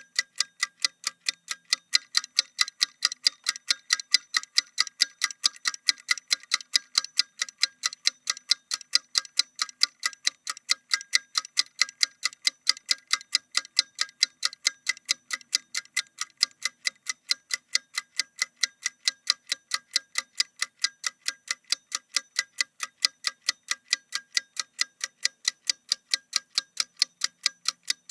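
Timer clock ticking: a rapid, perfectly even train of sharp clicks, alternating louder and softer like a tick-tock.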